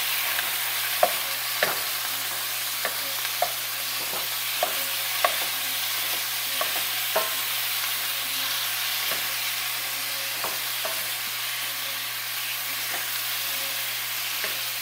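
Ground beef sizzling in a cast iron skillet as a meat chopper breaks it up. A steady sizzle runs under irregular clicks and short ringing clinks of the chopper against the pan.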